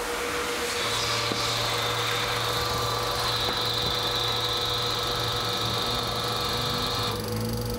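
Diesel injector test bench running: its drive motor and pump hum steadily with a high whine. The hum starts about a second in, and the whine drops away near the end.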